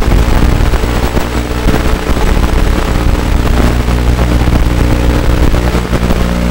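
Micro quadcopter's brushless motors spinning the propellers at low throttle while it sits on the ground: a steady, many-toned motor hum under a constant hiss. The hum wavers in the first couple of seconds, then holds steady.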